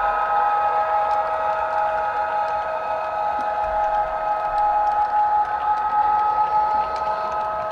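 Sound-equipped model of an E464 electric locomotive playing its traction-motor whine: several steady high tones held together, one of them dropping out briefly late on. Faint light clicks of the model's wheels on the track sound beneath it.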